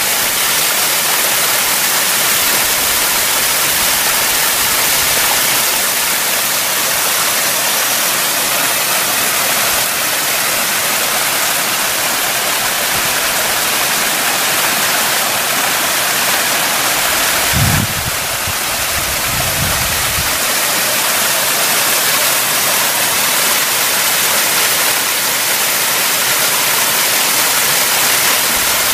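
Mountain stream rushing over rocks and small cascades, a steady loud rush of water. A little past halfway there are two brief low rumbles.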